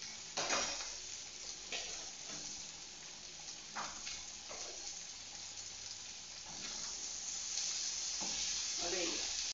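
Beans frying in a steel frying pan, with a steady sizzle. There are a few sharp knocks in the first half. Near the end the sizzle gets louder as a spoon stirs the pan.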